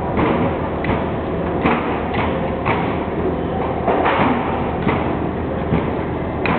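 Knives and Chilean abalone (loco) shells knocking and scraping on stainless steel work tables while the meats are cleaned of egg and viscera: irregular sharp knocks every half second to a second, over a steady low hum.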